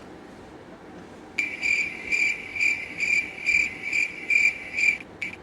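Cricket-chirp sound effect: a run of chirps, about two a second, that starts abruptly about a second and a half in and cuts off just before the end, the comedy cue for an awkward silence when nothing happens.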